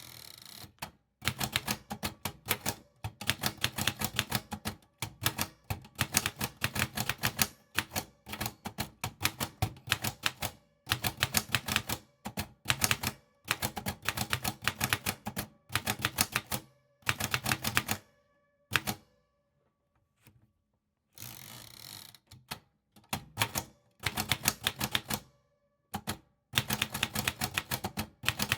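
Typewriter keys clacking in quick runs of sharp strokes, with short pauses between words and lines. Twice, between runs, there is a longer rasping sound about a second long.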